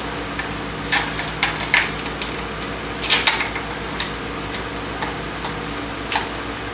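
Scattered light clicks and taps of a motorcycle's plastic handlebar switch housing being handled and pressed onto the handlebar, with a louder pair of clicks about three seconds in. A steady hum runs underneath.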